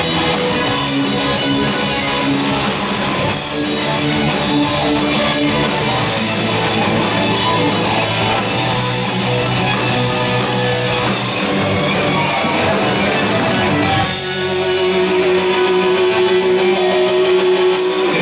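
Live rock band playing: electric guitars, bass and drum kit with cymbals. About fourteen seconds in the drums and bass drop away and a single note is held.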